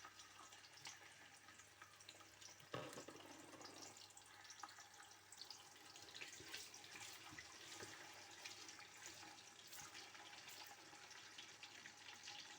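Sliced onions frying in hot groundnut oil in a pot: a faint, steady sizzle with fine crackling, and a single soft knock about three seconds in.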